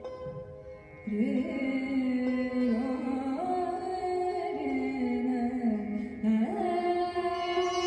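Indian classical-fusion ensemble music: voices and orchestral strings hold long notes together, stepping and sliding between pitches. The music comes in fuller about a second in, after a quieter moment.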